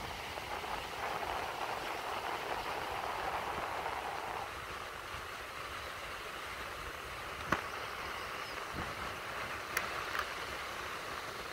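Steady rush of ocean surf breaking on the shore, an even hiss with no single wave standing out. About four and a half seconds in, the lower part of the rush drops away suddenly. A sharp click sounds about seven and a half seconds in, and two faint ticks follow near the end.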